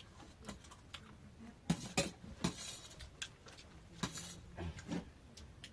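Eating utensils clinking and scraping against bowls and dishes in a few scattered, irregular clicks and knocks, with a faint murmur of voices near the end.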